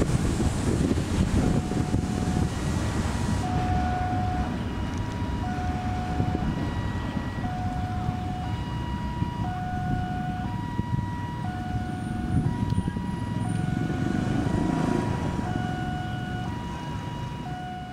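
Railway level-crossing alarm sounding its two-tone electronic chime, a lower and a higher note taking turns, each about half a second long. It plays over a steady low rumble and fades out at the end.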